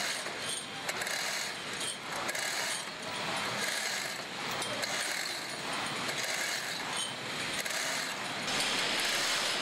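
Manual chain hoist (chain block) being worked to lift a heavy load: its ratchet clicks and the steel chain clinks through the block at an uneven pace, a sharp click every half-second to a second over steady background noise.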